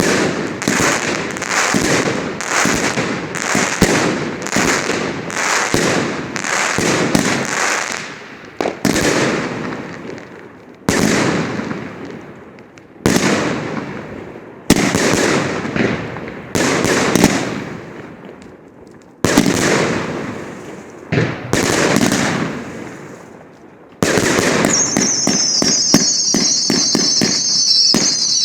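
Triplex TXB091 fireworks cake firing: a rapid run of bangs about one to two a second, then slower shots a second or two apart, each with a long crackling tail. Near the end a quick volley sets in, with a high whistle falling in pitch over it.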